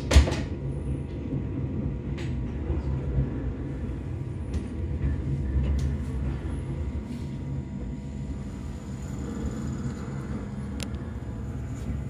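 Interior of an electric commuter train running and slowing as it pulls into a station: a steady low rumble of the running gear that eases off in the second half. A sharp clunk right at the start and a few lighter clicks.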